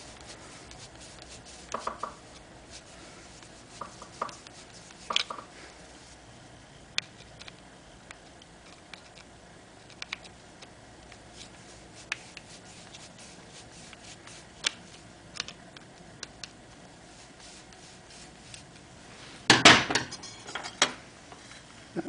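Small scattered metal clicks and taps of a bolt being threaded by hand through the choke mount on a motorcycle's air cleaner housing, with a louder clatter of metal parts being handled near the end.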